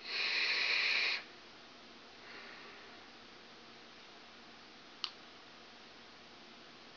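A hard draw on a sub-ohm vape tank, a TFV8 Cloud Beast with a 0.2-ohm coil fired at 125 watts: about a second of airflow hiss, then a fainter exhale about two seconds in. A single sharp click near the five-second mark.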